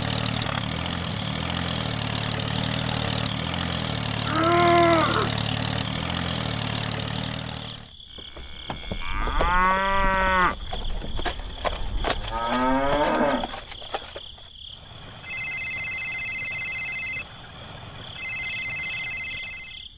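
A tractor engine running steadily, cutting off about eight seconds in; then two long cow moos, followed by a phone ringtone in two bursts near the end.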